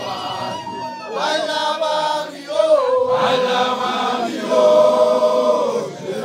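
Group of male initiates chanting together in long, wavering held notes, a traditional initiation song.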